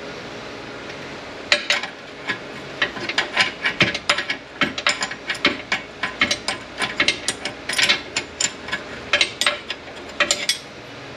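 Hand ratchet wrench clicking in short uneven runs of back-strokes as bolts are turned out of a manual transmission case. It starts about a second and a half in and stops near the end.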